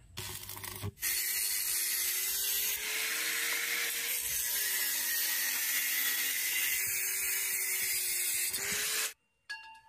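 An electric power tool grinding metal gives a loud, steady hiss, its motor tone sagging and rising under load. A short burst in the first second is followed by a longer run from about a second in that cuts off suddenly near the end.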